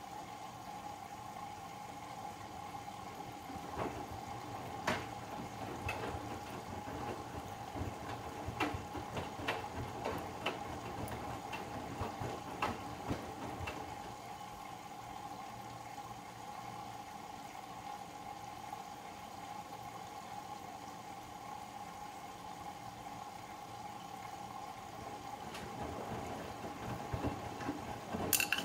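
Bosch Serie 8 front-loading washing machine mid-wash: laundry tumbling and splashing in the water-filled drum over a steady motor hum, with irregular knocks in the first half and a sharp click near the end.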